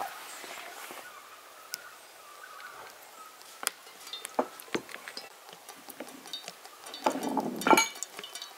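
Cooking oil poured from a bottle into a metal pan: a short, louder pour with splashing about seven seconds in, among scattered small clicks and ticks.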